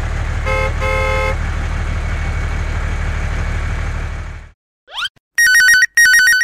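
Dubbed tractor engine sound effect running steadily, with two horn toots about half a second and a second in, the second one longer; it fades out at about four and a half seconds. Then a quick rising whistle and two bursts of a warbling mobile-phone ringtone near the end.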